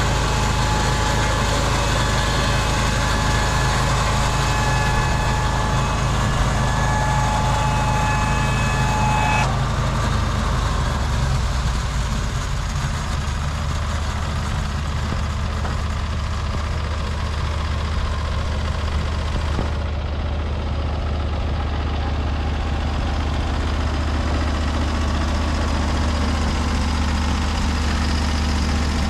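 Portable band sawmill's engine running steadily, with a high whine over it that stops suddenly about nine seconds in; after that the engine note shifts lower and keeps running.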